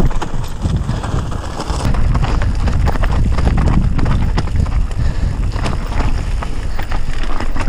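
Mountain bike descending loose, rocky singletrack: wind buffeting the camera microphone, with tyres crunching over stones and the bike rattling in quick clicks and knocks.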